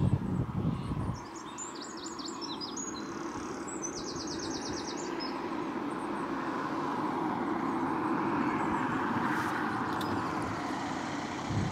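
Small birds chirping briefly over a steady rushing noise that slowly swells to its loudest about eight seconds in, then eases. A low rumble at the very start.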